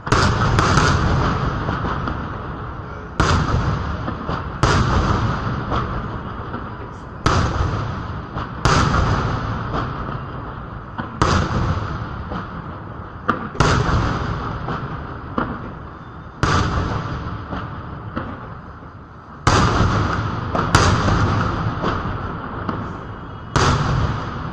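Aerial firework shells bursting in a display: about a dozen sharp booms, one every one to three seconds, each trailing off in echo.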